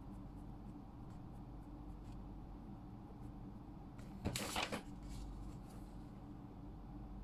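Quiet pen writing on paper over a low steady room hum, with a short rustle of paper being shifted by hand about four seconds in, the loudest sound here.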